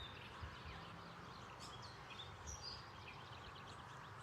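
Faint outdoor ambience: birds chirping in runs of quick, short high notes over a low, steady background hiss.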